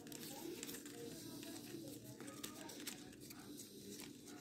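Faint crinkling and rustling of plastic gift ribbon being folded and tied by hand, with soft scattered clicks.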